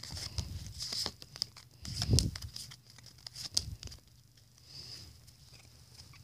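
Pokémon booster pack foil wrapper and trading cards being handled: crinkling and card-flicking rustles with short taps, busiest over the first four seconds and quieter after that.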